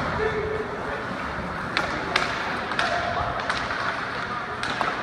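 Ice hockey play: about five sharp clacks of sticks and puck over the steady noise of skates on the ice, with faint distant voices.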